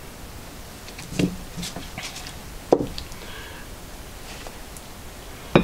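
Heavy steel parts of a manual pipe bender being handled and fitted together: scattered light knocks and clicks, a sharper click about midway and a louder clank at the very end.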